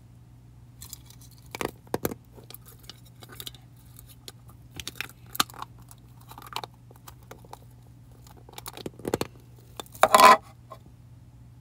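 Hard plastic makeup case being handled, with scattered sharp clicks and short rattles of small pieces knocking inside and against it, and a louder clatter about ten seconds in. A steady low hum underneath.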